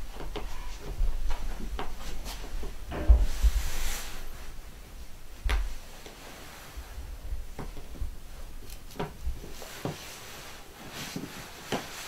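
Cocker spaniel puppies clambering over a small metal-framed dog bed and scrabbling about: irregular knocks, bumps and rubbing, with a few heavier thumps in the first half.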